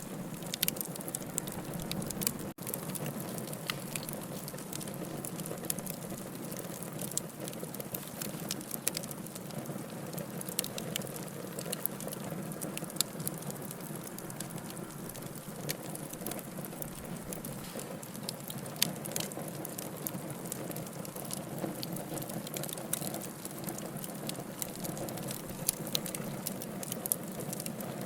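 Campfire crackling, with frequent sharp pops scattered irregularly over a steady hiss of burning.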